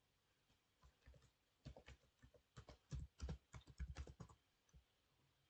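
Computer keyboard keys clicking as a word is typed: a quick run of about a dozen keystrokes that starts about one and a half seconds in and stops a little after four seconds.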